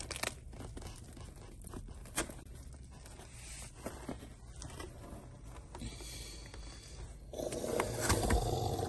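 A slice of pizza being pulled from a cardboard pizza box: soft tearing and scraping of crust, cheese and cardboard with scattered small clicks. About seven seconds in, a louder, steadier low sound comes in.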